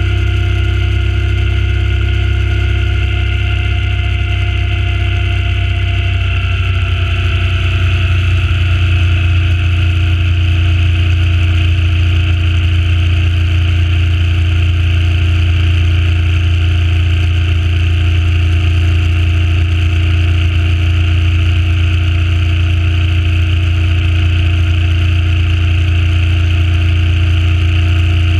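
Suzuki Intruder C800's V-twin engine running at a steady cruising speed, heard over wind noise. Its note shifts a little over the first several seconds, then holds even.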